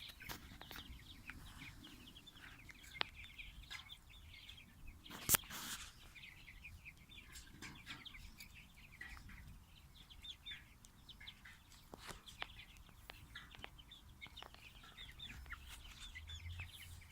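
A small flock of chickens calling steadily with many short, high clucks and chirps as they forage, with a sharp knock about five seconds in.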